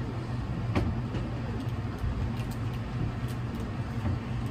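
Steady low rumbling hum of a large gymnastics gym's background noise, with a few faint knocks, the sharpest about a second in.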